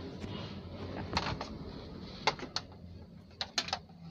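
A handful of sharp clicks and taps from hands working at the back of a CRT television while an antenna lead is fitted, over a low steady hum.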